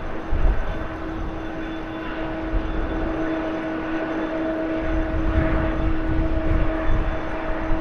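Boeing 777-300ER's GE90 jet engines running as the airliner rolls along the runway after touchdown: a steady whine with several fixed tones over a broad jet roar, with low rumbling swells about half a second in and again near the end.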